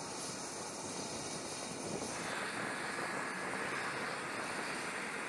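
Steady rushing noise of aircraft engines running, its tone changing about two seconds in.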